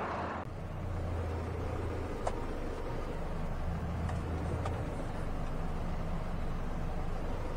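Flatbed tow truck's engine running, heard from inside the cab: a steady low drone that swells twice, with a few faint clicks.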